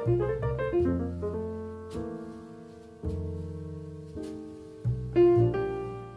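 Slow background piano music: chords struck about once a second and left to ring and fade.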